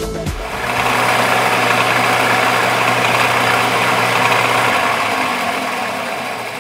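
Small metal lathe running steadily under power, a continuous mechanical drone from its motor and gearing; it starts to wind down near the end.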